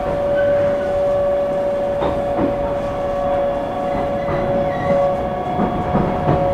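Cabin sound of an ET127-series electric train running: the Toyo GTO-VVVF traction inverter gives a steady two-note whine over the low rumble of the running gear, with a few clacks from the wheels over rail joints.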